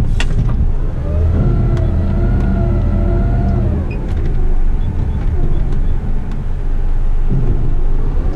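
Front-loader rubbish truck's engine revving and its hydraulics whining under load while the forks are worked. A pitched whine comes in about a second in, holds for about three seconds, then drops back to a steady low rumble. There is a sharp click near the start.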